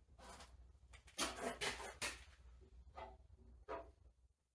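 Body-filler spreader scraping two-part putty across a car fender in a handful of short strokes, the loudest about a second in.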